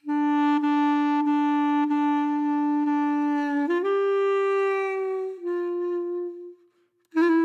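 Background music with a single reedy melody line: one long held note, then a step up to a couple of higher notes that fade away about six and a half seconds in. The tune starts again just before the end.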